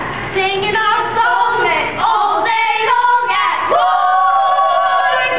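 High voices singing, ending with one long held note over the last second and a half.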